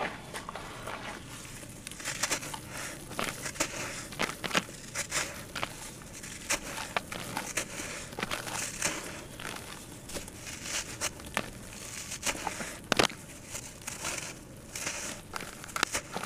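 Soft sand-cement blocks crumbling in gloved hands over a basin of water: a continuous run of irregular gritty crunches and crackles as chunks and grains break off and drop into the water, with one sharper snap about 13 seconds in.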